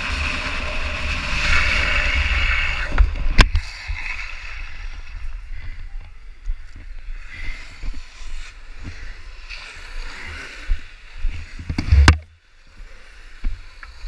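Wind rushing over a camera microphone at downhill speed, with a low rumble of wheels on asphalt. It is loudest in the first three seconds, with a sharp knock about three and a half seconds in and a heavy thump near twelve seconds, after which it drops much quieter.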